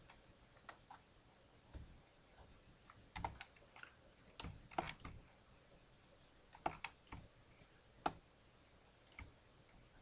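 Faint, irregular clicks and taps of a computer keyboard and mouse being used, spaced unevenly with several in quick succession through the middle.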